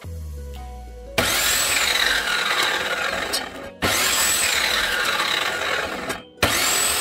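Compact electric mitre saw running and cutting through thin pine strips three times. Each run starts sharply with a rising high whine as the motor spins up, then the blade bites through the wood.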